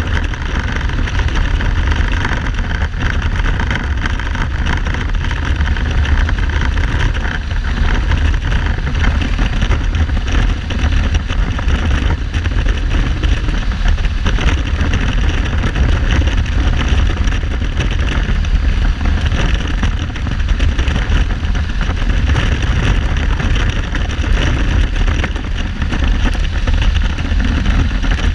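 Kawasaki Z1300's inline-six engine running under way, with heavy wind noise on the microphone throughout. The engine is not running on all cylinders, a misfire the rider puts down to the carburettors or spark plugs.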